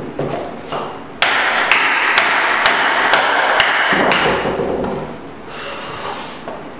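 Hammer blows on hardwood flooring: a run of about seven strikes, roughly two a second, starting about a second in and dying away after about three seconds.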